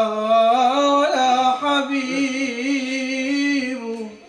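A man singing an Islamic nasheed solo, drawing out one long ornamented note that wavers in pitch and fades out near the end.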